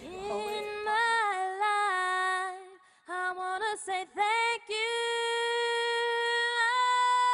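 A woman singing solo with no accompaniment, holding long, steady notes, with a short broken passage about three seconds in.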